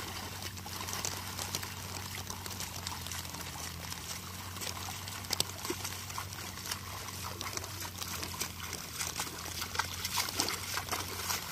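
Muddy water sloshing and splashing as a wooden ladder harrow is dragged through a flooded rice paddy by a person wading knee-deep, with scattered small splashes.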